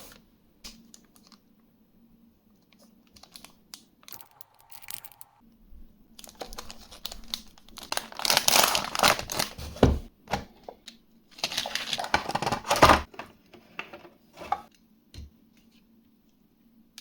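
Packaging of a 1/64 scale diecast model being opened by hand: scattered small clicks and rustles, then two louder spells of tearing and crinkling, each lasting a couple of seconds, in the second half.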